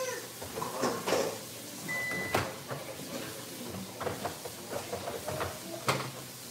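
Refrigerator door being opened and things moved about inside, with scattered knocks and clunks and one short beep about two seconds in.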